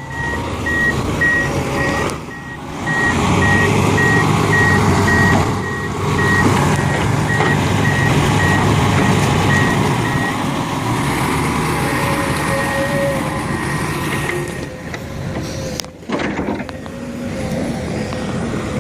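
Heavy construction machine's diesel engine running, with a reversing alarm beeping steadily about twice a second until roughly halfway through.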